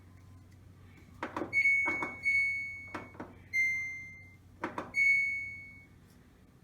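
Samsung DV45H7000GW dryer's control panel beeping as its buttons are pressed to start it: a click, then a single high electronic beep that fades out over about a second, four times, over a faint low hum.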